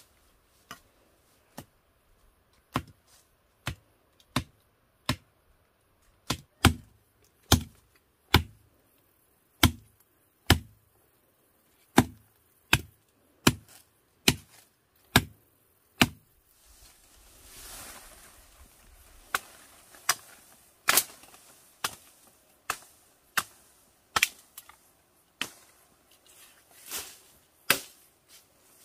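A machete chopping through weeds and brush in a steady series of sharp strikes, about one a second. After about 16 s the strikes come more unevenly, over the rustle and swish of vegetation being cut and moved.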